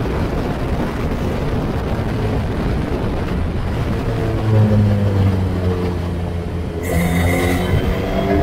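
Wind buffeting the onboard microphone of a Formula Ford race car at speed, with the car's engine note coming through about halfway in. Near the end the note changes suddenly and its pitch climbs steadily as the car accelerates.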